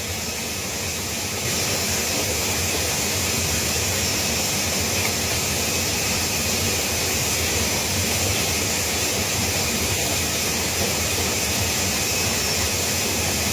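Steady rushing of water pouring down a waterfall into a mountain stream, a little louder from about a second and a half in.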